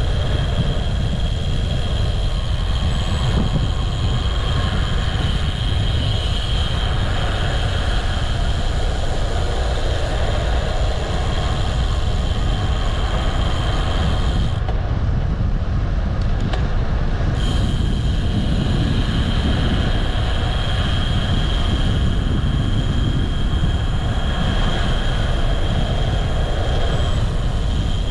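Wind rushing over the microphone and a steady rumble from a moving bike, with a thin high whine over it. The whine and the top hiss drop out for about three seconds midway, then return.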